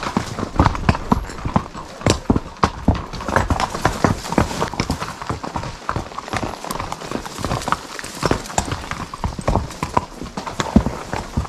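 Mules' hooves clip-clopping on a rocky trail, an uneven run of several hoof strikes a second from more than one animal walking.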